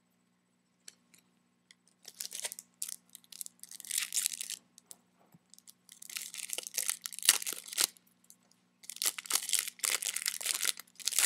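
Foil trading-card pack wrappers being torn open and crinkled, in three crackly bouts after about two seconds of near quiet.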